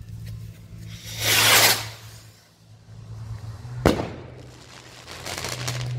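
FireHawk Fab 4 series stick rocket (Fab 1) launching with a loud whoosh lasting under a second, then about two seconds later a single sharp bang as it bursts in the air. A low steady hum runs underneath.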